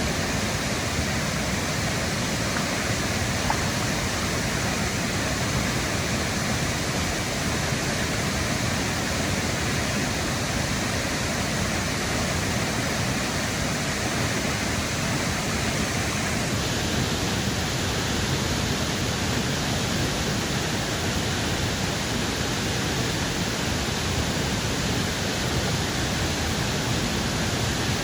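Foster Falls waterfall rushing steadily into its plunge pool, an even, unbroken roar. Its hiss changes slightly about two-thirds of the way through.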